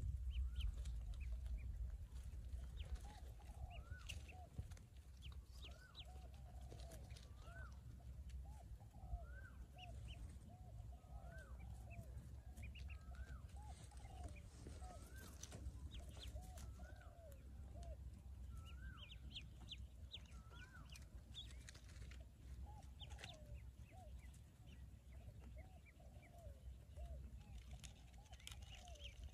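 A brood of newly hatched Pekin ducklings peeping, many short high calls overlapping and repeating about once a second. Lower soft calls run beneath them, with a low rumble in the first couple of seconds.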